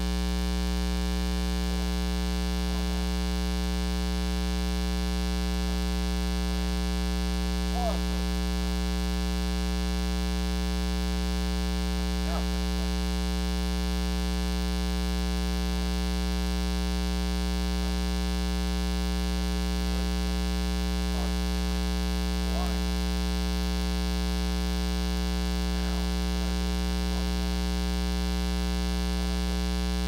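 Loud, steady 60 Hz mains hum with a ladder of overtones: a ground-loop hum that got into the camera's recording because the camera was powered from its AC adapter.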